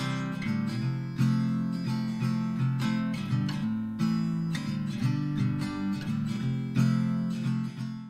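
Background music: an acoustic guitar strummed steadily.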